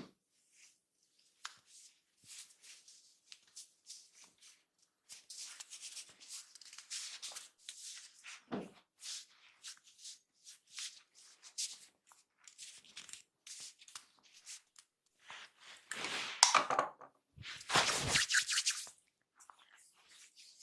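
Close-miked massage sounds: hands rubbing and pressing on skin and hair in a run of short rustling, scratching strokes, loudest in two longer bursts near the end.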